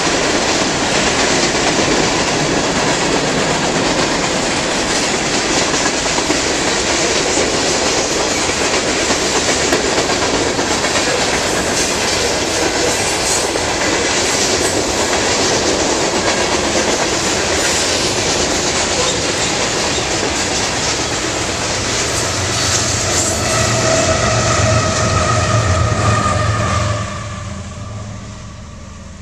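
A long train of railroad cars passing close by, its wheels clattering steadily over the rails, with a few steady tones rising above the clatter near the end. The last cars go by about 27 seconds in, and the noise drops off sharply.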